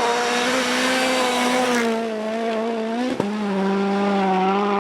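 A steady motor drone holding one pitch, with a hiss over it, broken by a brief click and a slight dip about three seconds in.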